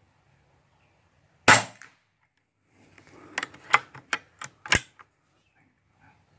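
A single shot from an EDgun Lelya 2.0 .22 PCP air rifle, a sharp crack about one and a half seconds in. About two seconds later comes a quick run of around six sharp clicks and knocks.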